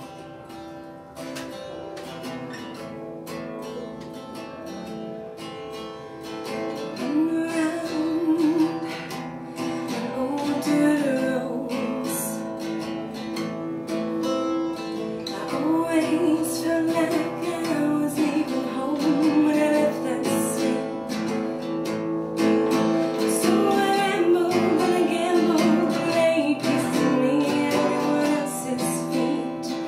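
Acoustic guitar played alone and fairly softly for about seven seconds, then a woman's voice comes in singing over it, louder, with the guitar accompanying.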